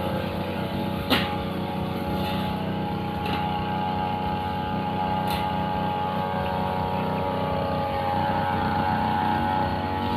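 Riu two-stroke brushcutter engine running steadily under load while cutting grass with its blade, with a sharp click about a second in and a few fainter ones after; it runs a little louder near the end.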